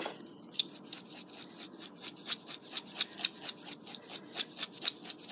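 Salt and pepper being dispensed over a bowl of chopped nopales salad: a fast, even run of short scratchy clicks, about six a second.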